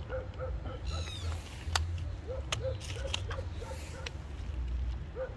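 An animal calling in a fast series of short, repeated notes, about three a second, with a few sharp clicks in between.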